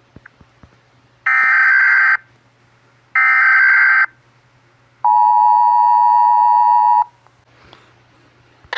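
Emergency Alert System-style alarm tones: two short warbling data bursts, about a second each, then a steady two-tone attention tone for about two seconds.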